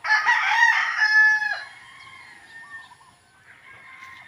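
A rooster crowing once, loudly, for about a second and a half and ending on a held note that cuts off. Fainter chicken calls follow.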